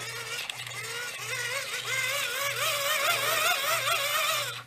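The hand-crank dynamo of a Midland ER50 emergency radio being cranked: a geared whine whose pitch rises and falls with each turn of the crank. It stops abruptly near the end.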